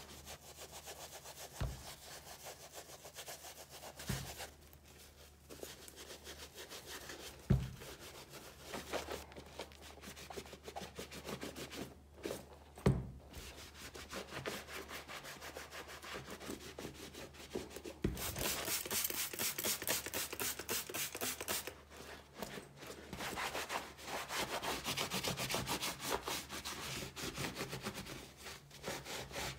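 Repeated rubbing strokes by hand in quick succession, growing louder and denser about two-thirds of the way in. A few short knocks come between strokes in the first half.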